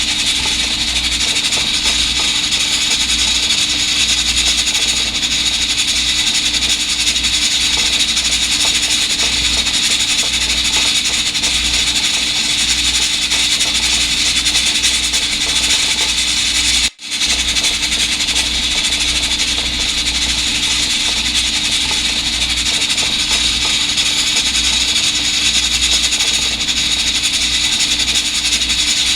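Electric pressure rice cooker hissing steadily as it vents steam while the rice cooks, with a faint steady hum underneath; the sound cuts out for an instant about two-thirds of the way through.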